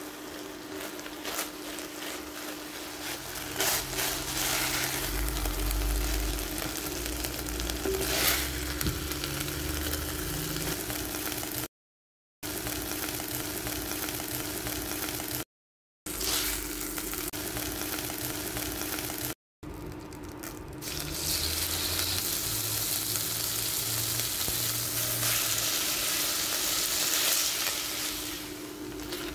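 Chicken breast strips sizzling as they fry in an enamelled cast-iron pot, with a wooden spoon stirring and scraping through them over a steady low hum. The sizzle grows louder in the last third as raw strips of a second batch go into the hot pot. The sound is broken by three short silences.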